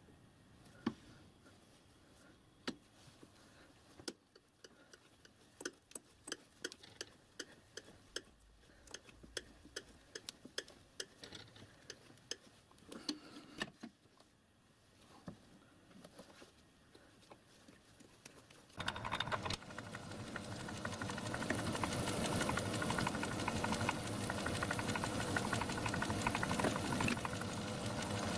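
Scattered sharp clicks and ticks as a thread die is worked by hand onto a copper tube held in a metal lathe chuck. About two-thirds through, the lathe motor starts and runs steadily, louder than the clicks.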